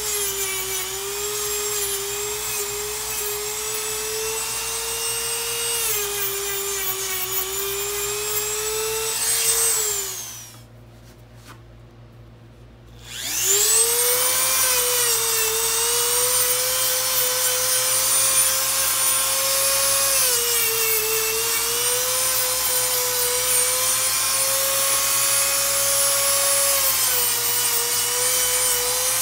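Handheld rotary nail grinder grinding a dog's nails: a steady high motor whine that dips in pitch now and then as it presses on a nail. About ten seconds in it switches off and spins down, and a few seconds later it starts again and rises back to speed.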